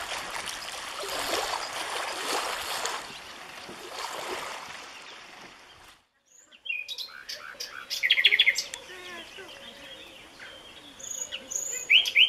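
A shallow stream rushing over pebbles, which cuts off about six seconds in; then a common nightingale singing, with a fast run of repeated notes and loud, sharp notes near the end.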